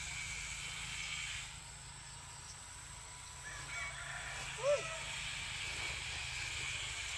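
A brief animal call, a single note that rises and falls, about two-thirds of the way through, with a few fainter calls just before it, over a steady outdoor hiss.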